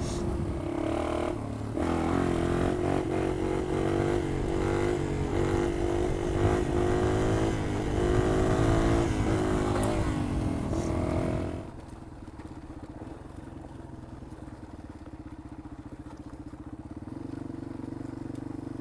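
Yamaha XT225's single-cylinder four-stroke engine riding under power over rough ground, its pitch rising and falling, with rattles and knocks from the bumps. About twelve seconds in, it drops suddenly to a steady idle.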